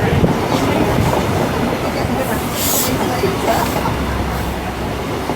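Train running on rails with a steady low rumble, and a short sharp hiss about two and a half seconds in.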